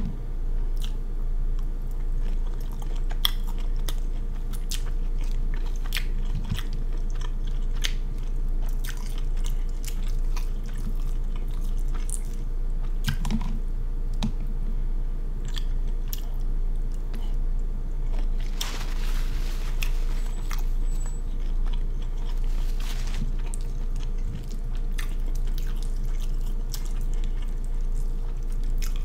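Close-miked chewing and biting of boiled seafood, most likely jumbo shrimp, with many sharp wet smacks and crunchy clicks. A steady low electrical hum runs underneath.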